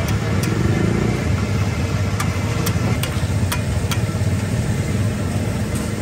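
A steady low, engine-like rumble of the street-stall surroundings, with a scattering of sharp clicks from a metal spatula striking the iron tawa griddle.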